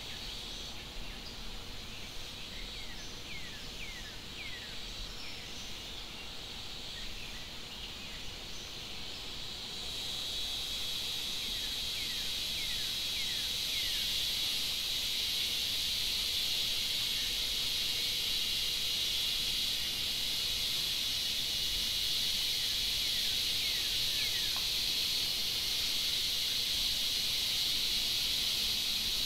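Forest insect chorus, a steady high-pitched buzz that swells louder about a third of the way in, with scattered short, quickly falling chirps now and then.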